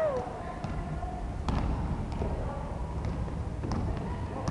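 Basketball play on a hardwood court: scattered thuds and taps of the ball bouncing and feet landing on the wooden floor, over a steady low rumble.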